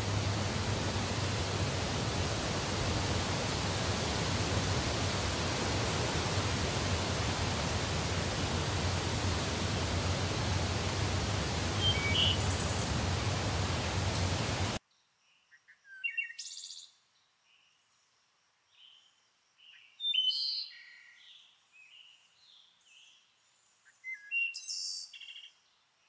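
A forest stream rushing over rocks, a steady even hiss of water, cuts off abruptly about halfway through. After the cut, songbirds sing short chirping phrases against a quiet background, with three main bursts.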